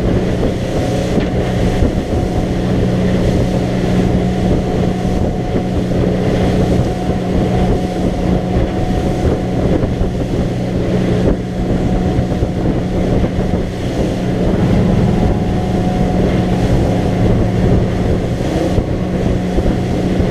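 Motorboat engine running steadily with the boat under way, with a drone of low, even tones and wind on the microphone.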